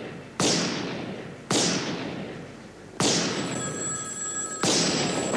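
Four loud revolver shots from a .44 Magnum, about one to one and a half seconds apart, each with a long echoing tail. A telephone starts ringing about three seconds in, between the shots.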